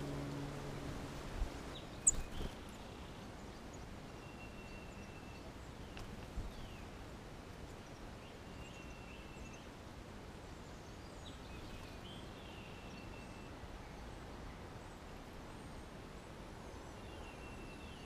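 Faint backyard songbirds calling now and then: short, thin, level whistles every four or five seconds and quick downslurred notes, over a steady outdoor background hiss. A few sharp taps, the loudest about two seconds in.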